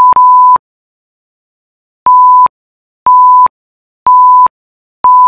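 Colour-bar test tone, a steady pure beep that cuts off about half a second in, then film-countdown-leader beeps: short identical beeps at the same pitch, one a second, four of them starting about two seconds in.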